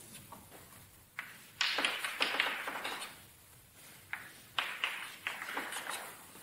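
Chalk tapping and scraping on a blackboard as short dashed strokes are drawn. It comes in two runs of strokes, each a second or so long and each starting with a sharp tap.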